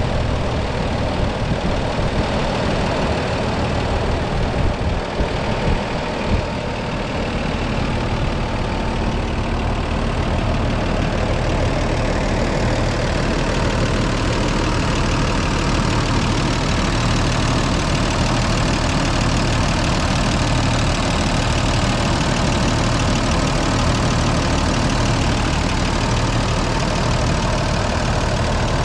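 1980 Toyota Land Cruiser's 2F 4.2-litre inline-six petrol engine idling steadily, heard up close from the open engine bay as it warms up after a cold start.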